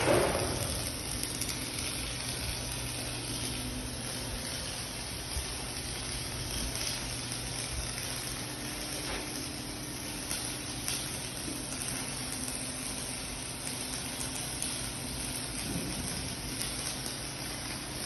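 Electric welding arc burning steadily on a metal liner, a continuous frying hiss with small crackles over a faint low hum.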